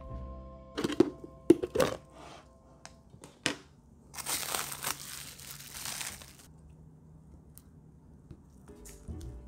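A few sharp knocks in the first two seconds, then about two seconds of plastic wrap crinkling as it is peeled away from custard set in a glass baking dish.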